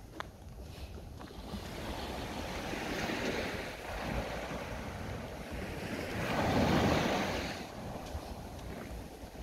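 Small waves washing up a sandy shore and drawing back. The surf swells twice, the second and louder wash about seven seconds in, then fades.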